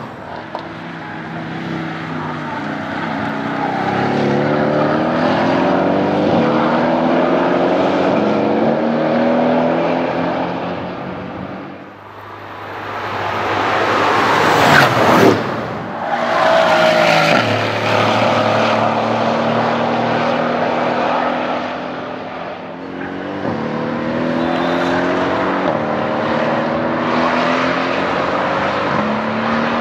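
Mercedes-AMG 4.0-litre twin-turbo V8s of a C63 AMG S wagon and an AMG GT driving past, the engine note climbing steadily as they accelerate, dying away, then climbing again twice more. There is a short loud peak about halfway through.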